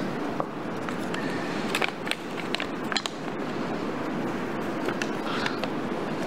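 Scattered clicks and clacks of draw balls being handled in the draw pot, over a steady murmur of room noise.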